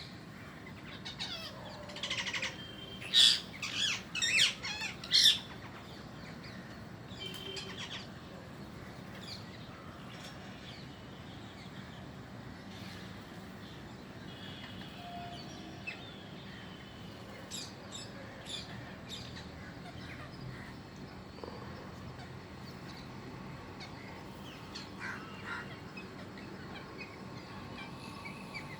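Parrots calling: a burst of about five loud, harsh calls a couple of seconds in, then scattered fainter chirps and calls.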